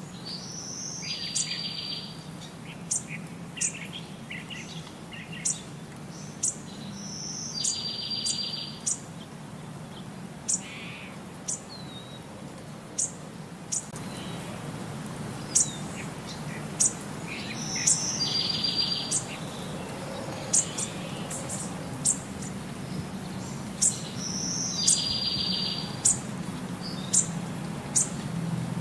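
Birds chirping: many short, sharp chirps, with a buzzy trill of about a second that comes back four times, over a steady low hum.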